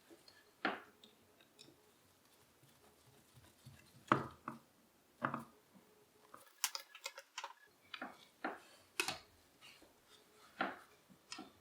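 Scattered sharp clicks and light knocks of a shotgun and its newly fitted stock parts being handled, loudest about four seconds in, with a quick run of fine clicks around the middle.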